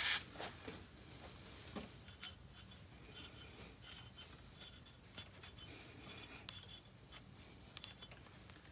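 A spray of contact cleaner cuts off right at the start. Then a cloth rubs and wipes the metal top of the ignition housing, a faint scratchy rubbing with scattered light clicks and taps.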